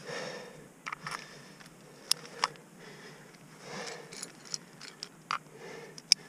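A climber breathing hard, several breaths about a second apart, with sharp clicks and scrapes as rope and gear are handled at the steel anchor chains.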